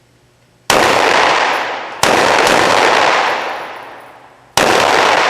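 Three 9mm shots from a Glock pistol, the second about a second and a half after the first and the third about two and a half seconds later, each one loud and ringing out in a long echo.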